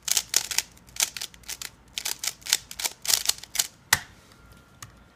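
Rubik's cube turned rapidly by hand, its plastic layers clacking in quick, irregular runs, with one sharper click just before the end.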